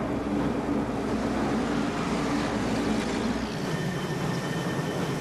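Steady engine and machinery noise of flight-deck operations, with a low drone that drops out about three and a half seconds in, leaving a thinner sound with a faint high whine.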